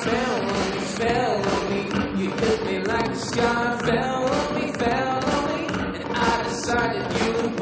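Live pop band playing, with singing over piano, drums and guitars.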